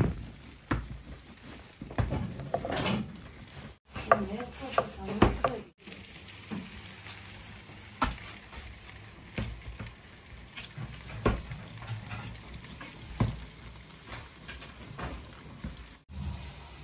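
Busy kitchen background: a steady hiss with scattered sharp knocks and clatter, and snatches of background voices in the first few seconds.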